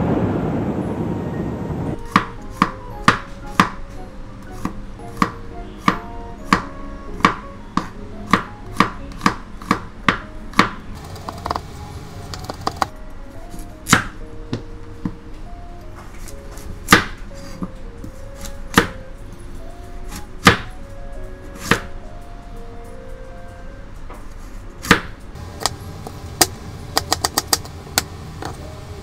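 Kitchen knife chopping a carrot on a plastic cutting board: sharp single knocks of the blade on the board, about one a second at first, sparser in the middle, then a quick run of fast chops near the end. The first two seconds hold the tail of a thunderclap with rain.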